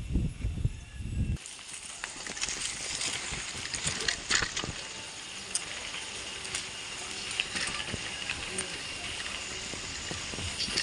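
Bicycle ridden over rough ground: a low, uneven rumble that cuts off abruptly about a second and a half in, then a steady hiss of tyres on dirt with scattered small clicks and rattles.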